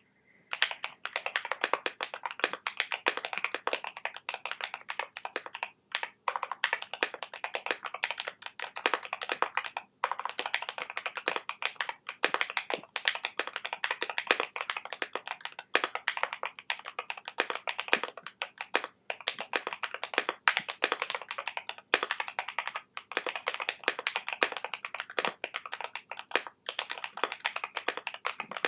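Continuous typing on a custom mechanical keyboard with lubed and filmed Durock Koala tactile switches, polycarbonate plate and ePBT keycaps: a fast, even stream of key clacks with a few brief pauses.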